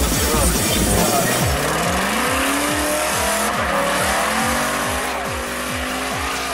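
BMW E39 M5's 4.9-litre V8 revving up about a second and a half in and held at high revs, with tyres squealing as the car drifts. Music with a fast steady beat plays underneath.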